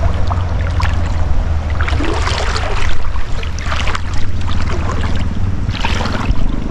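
Wind rumbling steadily on the microphone over shallow river water lapping and splashing, with a few louder splashy bursts every second or two.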